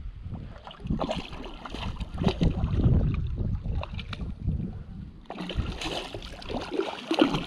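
Wind buffeting the microphone while a large hooked brown trout thrashes and splashes at the surface of the creek. The splashing grows heavier and brighter from about five seconds in.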